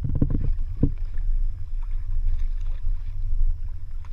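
Steady low rumble of a fishing boat on open water, with a short knock about a second in.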